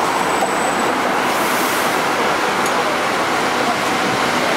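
Steady rushing running noise of a Hong Kong double-deck tram in motion, heard from on board, mixed with street traffic noise.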